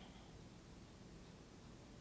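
Near silence: room tone while the breath is held in a yoga breathing exercise.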